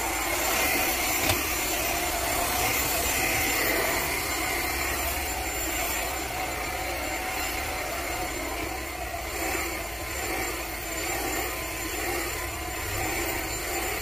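Cordless stick vacuum cleaner running steadily: a continuous motor rush of air with a thin high-pitched whine over it.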